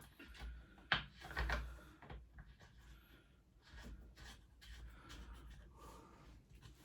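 Faint handling sounds of work on a pit bike: a sharp click about a second in, then a short rub or scuff, and a few light taps and rustles after that.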